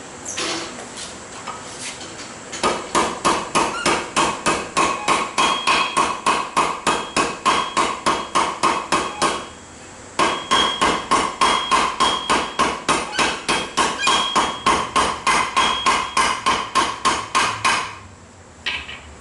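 Hand hammer forging hot steel on an anvil: about three blows a second with a ringing tone, in two long runs broken by a short pause about ten seconds in.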